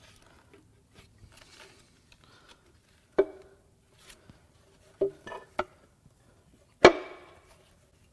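Five sharp, ringing metallic knocks from a Ford 3.5 EcoBoost V6 timing cover being worked loose by hand from the block, where excess RTV sealant holds it. One knock comes about three seconds in, three follow close together around five seconds, and the loudest comes near the end.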